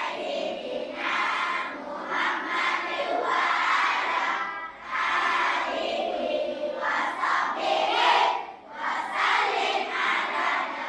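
A group of children's voices in unison, chanting or reciting loudly in long phrases, with brief breaks about halfway and again near the end.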